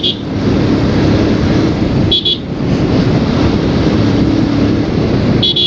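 Motorcycle riding in traffic, with steady wind and road noise and a low engine hum, and a vehicle horn honking briefly about two seconds in and again near the end.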